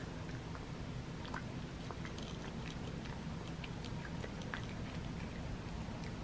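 Cat chewing and crunching dry kibble from a bowl: small, irregular crunches and clicks.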